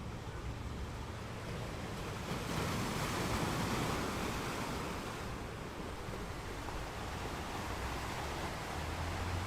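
Waves washing onto a beach: a steady hiss of surf that swells about two and a half seconds in as a wave breaks and eases off again a couple of seconds later, over a low rumble.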